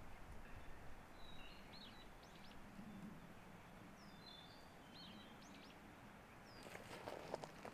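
Small forest birds calling in short, high chirps and quick sweeping notes over a faint outdoor hush. Near the end, footsteps on a forest trail begin.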